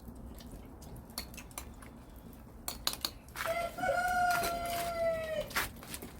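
A rooster crowing once, a single long call of about two seconds in the second half, preceded by a few light clicks.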